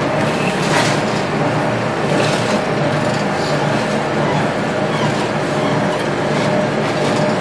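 Four-outlet charcoal briquette extruding press running steadily, a loud even motor and gearbox drone with a steady hum as it pushes out charcoal sticks, with a few faint knocks.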